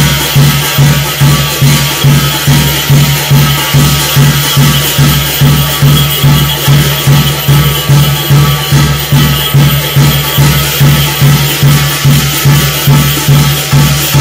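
Korean shamanic gut ritual music: percussion pulsing evenly at about two beats a second over a sustained low tone, with a bright jingling or rattling on top.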